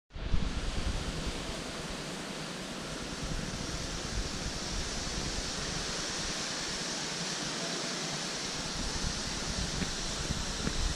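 Steady background hiss with an uneven low rumble underneath, and no distinct sound standing out.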